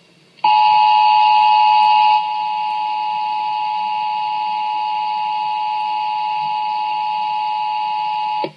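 Emergency Alert System attention signal: a steady two-tone alarm that starts about half a second in and cuts off near the end, louder for its first two seconds.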